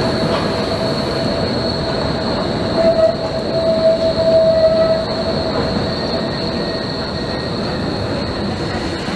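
Articulated low-floor tram rolling through a curve, its wheels squealing on the rails: a steady high whistle throughout and a lower whining tone that swells to its loudest for a couple of seconds near the middle, over the noise of rolling.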